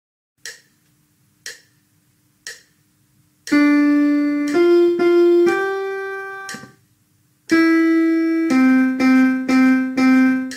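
Three metronome clicks a second apart count in a short piano-toned keyboard melody. It goes one long note, two quick higher notes, a long note that fades, a one-beat pause, then a long note and four quick repeated lower notes. This is a rhythm-and-melody dictation fragment played for the listener to identify.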